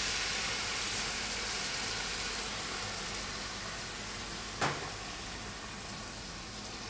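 Red wine sizzling as it is poured into a hot stockpot of browned vegetables and pig's trotters to deglaze and reduce; the sizzle fades slowly. One sharp knock about two-thirds of the way through.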